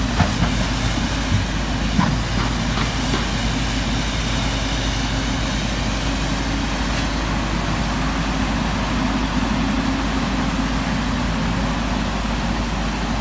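JCB 220 LC tracked excavator's diesel engine running steadily with a low rumble, with a few sharp knocks in the first three seconds.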